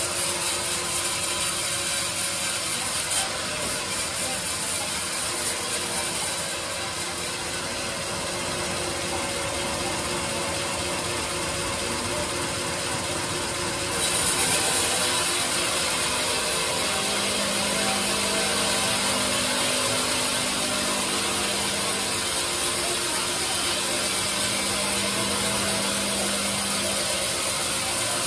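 Sawmill bandsaw running and cutting lengthwise through a teak log as the carriage feeds it: a steady mechanical noise. It gets suddenly louder about halfway through, and a steady low hum joins a few seconds later.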